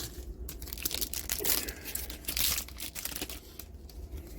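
Foil trading card booster pack wrapper crinkling and tearing as it is opened, in irregular rustles that are loudest through the middle.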